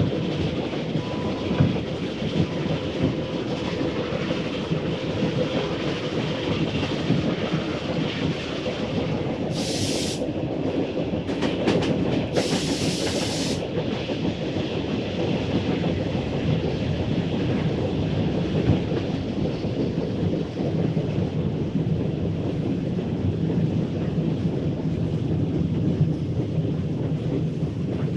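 Steam train running along the track, its wheels clattering steadily over the rail joints. Two short bursts of steam hiss come about ten and twelve seconds in.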